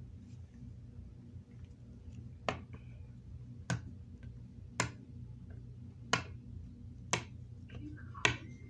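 Small hard plastic toy figure tapped down on a tabletop, six sharp taps about a second apart, over a steady low hum.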